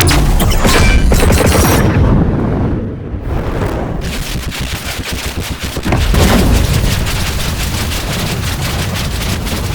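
Layered anime fight sound effects: a dense, rapid string of sharp cracks over a heavy low rumble. It starts abruptly and stays loud, dipping briefly about three seconds in.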